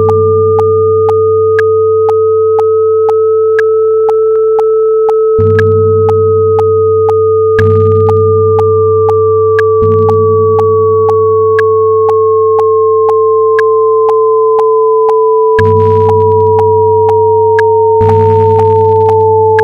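Synthetic sine-wave tones: a steady tone held under a higher tone that slowly rises, then glides down through the rest of the stretch. Regular clicks come about twice a second, over a low hum that swells anew every few seconds.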